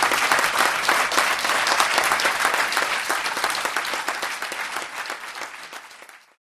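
Audience applauding, a dense steady clapping that fades away over the last two seconds and cuts off near the end.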